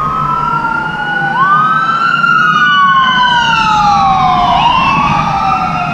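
Two emergency-vehicle sirens wailing at the same time, out of step with each other. Each one slowly rises and falls in pitch over a few seconds.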